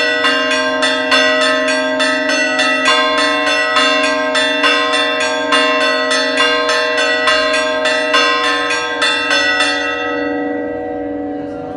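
Greek Orthodox church bells rung in a fast festive peal for a doxology: rapid clapper strikes, several a second, over a steady ringing hum. The striking stops about ten seconds in and the bells ring on, fading.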